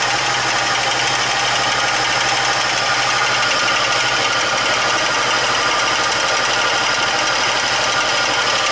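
VAZ 2114 four-cylinder petrol engine idling steadily with a light knock, running slightly rough. The knock was later traced to a broken piston skirt and a burnt valve.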